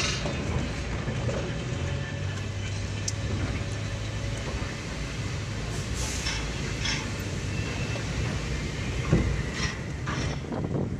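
Car rolling slowly in low gear, heard from inside the cabin: a steady low engine and tyre rumble, with a few short clunks as it crosses the steel ramp and deck of a vehicle ferry, about six and nine seconds in.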